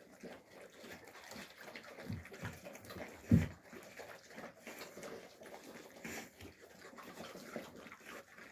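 Alabai puppies eating mash from metal bowls: irregular wet smacking, lapping and chewing. A single loud low thump comes a little over three seconds in.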